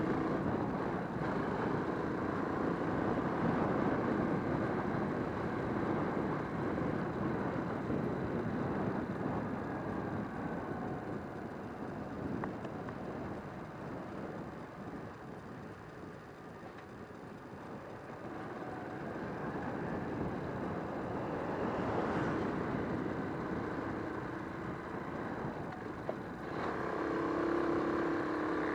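Motorcycle under way, its engine running under wind and road noise. The noise is loudest at the start, eases off toward the middle and builds again, and a steadier engine note sets in near the end.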